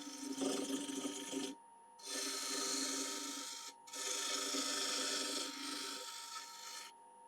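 Wood lathe running with a steady whine while a bowl gouge cuts into the spinning walnut bowl blank, a hissing, scraping cut in three passes with short breaks about one and a half and nearly four seconds in. The cuts are turning away soft, punky wood on the end of the blank.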